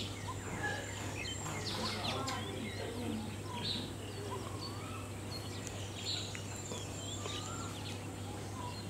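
Several birds chirping and calling: short whistled notes and quick rising and falling glides, scattered throughout, over a steady low hum.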